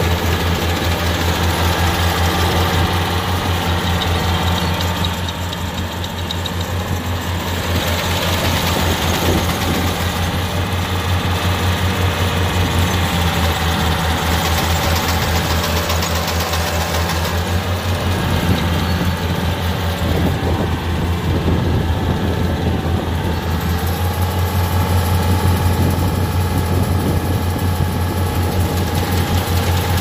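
Kubota R1-551 rice combine harvester at work cutting and threshing rice. Its diesel engine runs with a steady low drone and a rapid even beat, over the constant mechanical noise of the cutting and threshing gear, easing briefly about six seconds in.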